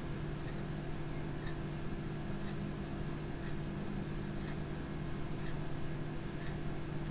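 Steady low hum and hiss of background noise, with a faint tick about once a second.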